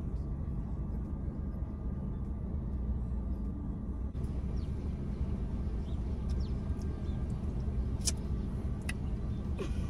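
Steady car-cabin rumble of engine and road noise, with a couple of sharp clicks near the end.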